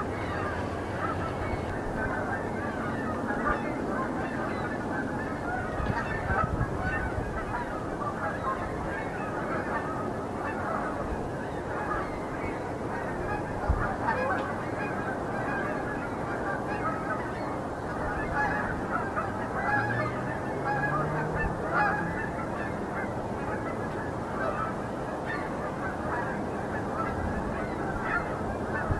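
A flock of Canada geese honking, with many calls overlapping in a continuous chorus.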